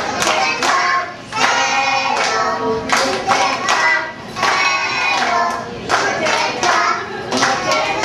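A group of young children singing together, with hand claps.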